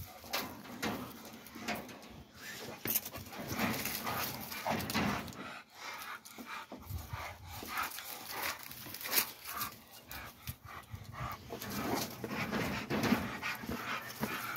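Hound working out on a dog mill (treadmill), breathing hard, with a steady run of irregular clicks and knocks.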